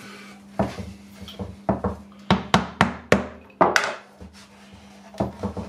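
A mallet tapping glued wooden boards held in clamps, knocking them flush and straight while the glue is wet: a quick run of about ten sharp knocks, then a couple of softer taps near the end.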